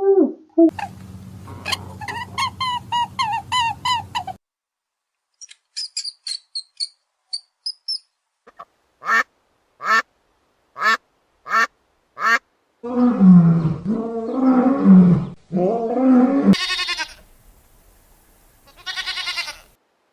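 Animal calls from several short clips cut one after another, including ducks quacking in a string of short, evenly spaced calls; other bird and animal calls come before and after.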